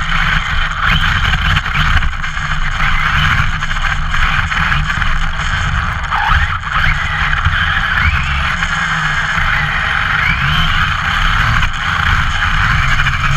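Team Redcat MT-8E 1:8 brushless RC monster truck running, heard from its onboard camera: a whine from the motor and drivetrain that slides up and down with the throttle over a heavy rumble of tyres and chassis on snow and asphalt.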